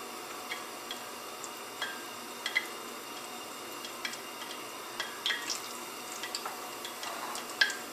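Breaded meatballs frying in hot vegetable oil: a steady faint sizzle with scattered sharp crackles and pops, which come more often near the end as more meatballs go into the oil.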